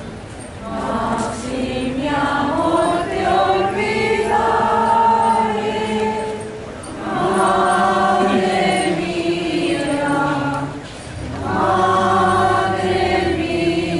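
Congregation of worshippers singing a hymn together in long sustained phrases, with short breaks between phrases about seven and eleven seconds in.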